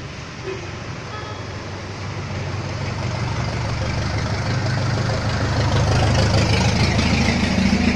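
A school bus drives through standing water on a flooded street, its engine growing louder as it comes up and passes close by. The spray of its tyres through the water grows loudest in the last couple of seconds.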